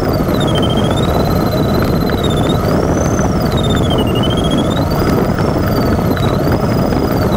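Steady rush of airflow heard inside an LS4B glider's cockpit during a banked, circling turn. Over it the variometer's electronic audio tone rises and falls slowly in pitch, following the changing lift.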